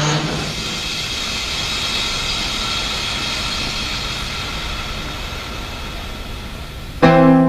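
Cartoon sound effect of a train speeding along: a steady rushing, rumbling noise that slowly fades a little. It gives way to music with a guitar about seven seconds in.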